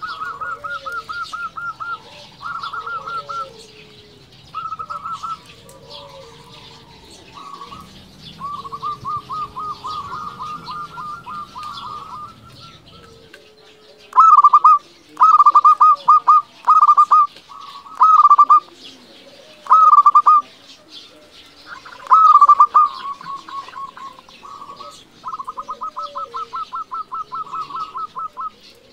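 Zebra dove (perkutut) singing: repeated bouts of fast, evenly spaced cooing notes, with a run of short, louder phrases about halfway through. Other small birds chirp faintly behind it.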